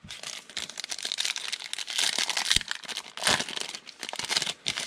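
Foil wrapper of a football trading card pack crinkling and crackling as it is handled and torn open by hand.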